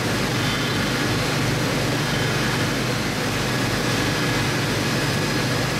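Steady workshop machinery noise: an unbroken low hum under a broad hiss, even in level throughout.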